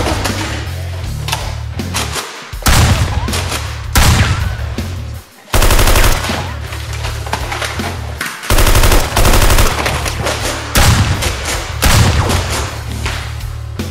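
Several bursts of rapid automatic gunfire sound effects over an action music track with a steady heavy bass.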